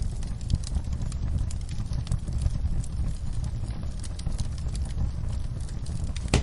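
Wood fire crackling: irregular sharp pops and snaps over a steady low rumble of flame, with one louder pop near the end.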